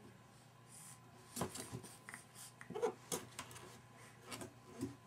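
A baby's hands patting and scratching at a cardboard diaper box, a handful of irregular light taps and scrapes, with a couple of short baby grunts in between.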